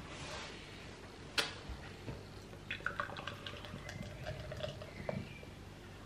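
Dark stout poured from a can into a pint glass, faint splashing and glugging as the glass fills. A single sharp click comes about a second and a half in.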